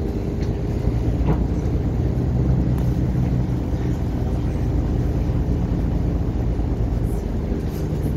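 Steady low rumble of idling city buses and road traffic.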